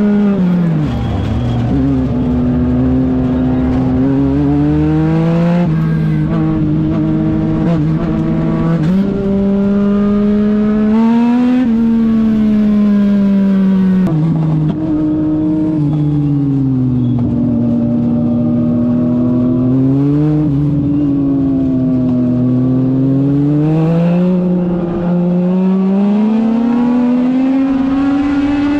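A Legend race car's Yamaha four-cylinder motorcycle engine, heard from inside the car while racing. Its revs climb on the straights and drop each time the driver lifts for a turn, over and over.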